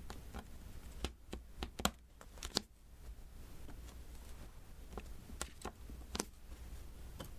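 Diamond painting: a drill pen tapping small resin drills onto a sticky canvas, a dozen or so light, irregular clicks with short pauses between them.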